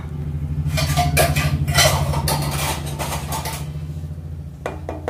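Wooden spatula stirring and scraping boiled fusilli pasta in water in a coated pan, a run of clattering strokes over the first few seconds, over a steady low hum.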